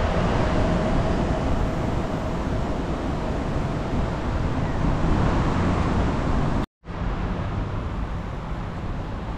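Steady city traffic noise, an even wash of passing cars. The sound drops out completely for a split second about two-thirds of the way through.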